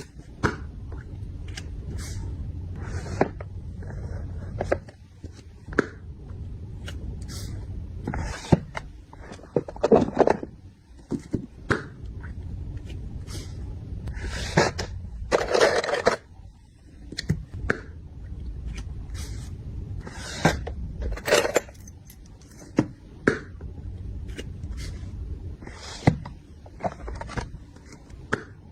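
Small objects being handled and packed by hand: irregular clicks, knocks, short rustles and scrapes of plastic and packaging, over a steady low rumble.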